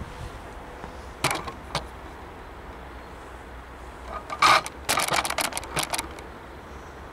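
Sharp clicks and rustles close to the microphone: two about a second in, then a dense, loud cluster from about four to six seconds in, over a steady low wind rumble.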